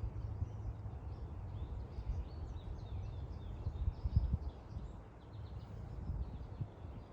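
Many short chirps and calls of small birds over a steady low rumble, with a few low thumps about four seconds in.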